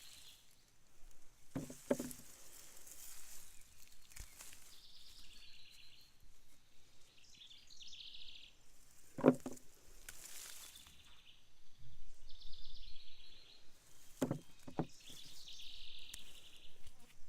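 Potatoes being dug by hand from garden soil: rustling and scraping, with a few dull knocks, the loudest about nine seconds in. Short high chirps from birds or insects come now and then.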